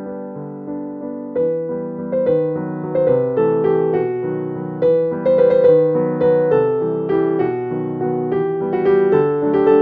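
Background piano music: a gentle melody of struck notes that each ring and fade.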